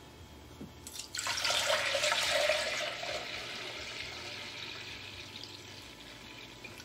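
Kombucha pouring in a stream from a gallon glass jar into a pitcher. It starts suddenly about a second in and is loudest at first, then gradually thins out as the pour slows.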